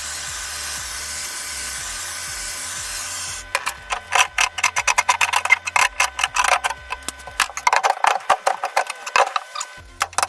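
Steady hiss of a torch flame heating aluminum. It cuts off about three and a half seconds in and gives way to a fast, irregular run of sharp clicks and taps.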